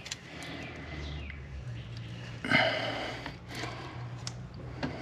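Low steady hum with a few faint clicks and rustles of hands at work, and a short sniff about two and a half seconds in.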